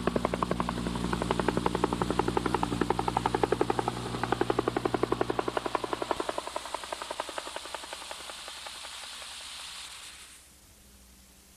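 Helicopter rotor chopping steadily at about ten beats a second, fading away and cutting off abruptly about ten seconds in, leaving faint tape hiss.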